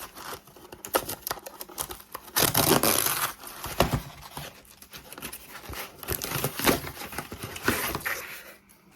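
A parcel being opened by hand: packaging tearing and crinkling, with scattered clicks and handling knocks. It is loudest about two and a half to three seconds in.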